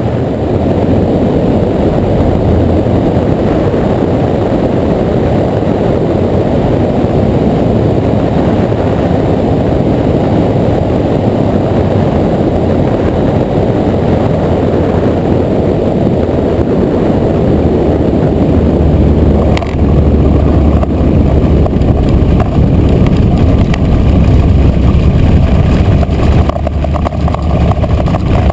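Kolb Firestar II ultralight's engine and propeller running steadily, mixed with heavy wind rush on the strut-mounted camera. About two-thirds of the way in there is a short knock, after which the sound turns deeper and slightly louder.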